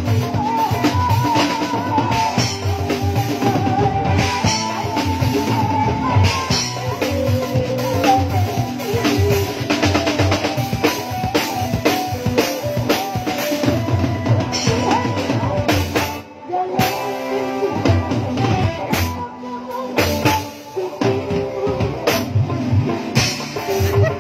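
Drum kit played along with a dangdut song: bass drum, snare and rimshot strokes driving the beat under a wavering melody line. The music briefly drops away about 16 seconds in and again about 20 seconds in.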